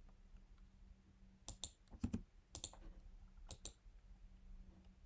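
Faint, sharp clicks at a computer, mostly in quick pairs like mouse-button presses, about four times, with a duller knock about two seconds in, over a steady low hum.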